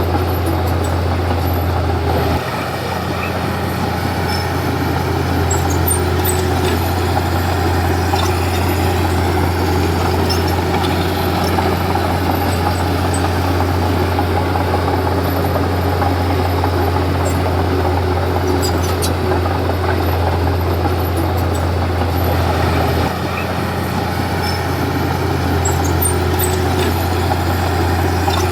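Komatsu D31P bulldozer's diesel engine running steadily under work, its note shifting about two seconds in and again near the end, with faint scattered clinks.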